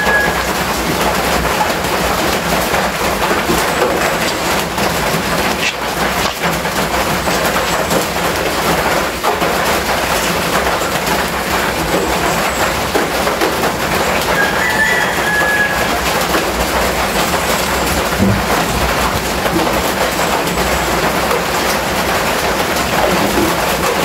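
Rain drumming steadily on a corrugated metal roof, a dense even patter. A bird chirps briefly twice, once at the start and once about halfway through.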